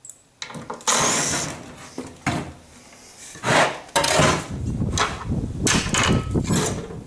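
A cordless drill runs briefly about a second in, backing out the screws holding the sled's fences. Then wood knocks and clatters as plywood pieces are handled and set down.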